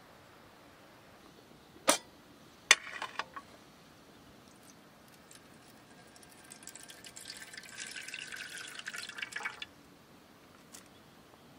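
Water poured in a thin stream into a metal mess tin under a wire steaming rack, splashing for about three seconds and then stopping. Before it come two sharp clicks, the second followed by a short rattle.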